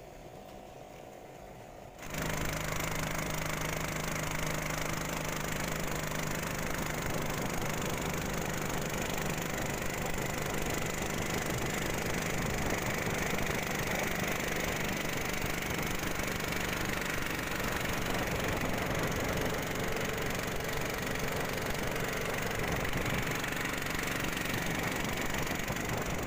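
Small boat engine running steadily at an even pitch. It cuts in abruptly about two seconds in, after a quiet start.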